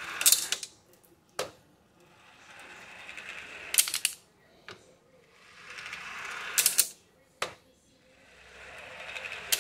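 Steel ball bearings rolling down oil-coated metal channels as the rack is tilted: a rising rolling rumble that ends in a clatter as the balls strike the end of the channels and each other. This happens about every three seconds, with a single sharp click about a second after each clatter.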